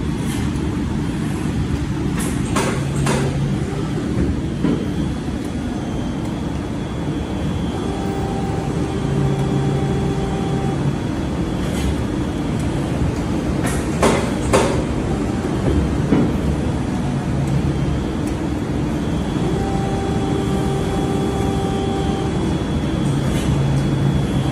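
Plastic injection moulding machine running a 64-cavity clamp mould: a loud steady machinery din, with a pitched whine that comes in for a few seconds twice and a few sharp clacks, the loudest about halfway through.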